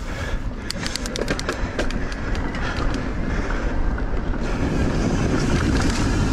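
Mountain bike rolling fast down a dirt singletrack: knobby tyres rumbling over loose dirt, with wind on the microphone. A quick run of clicks and rattles comes in the first couple of seconds, and the wind grows louder toward the end.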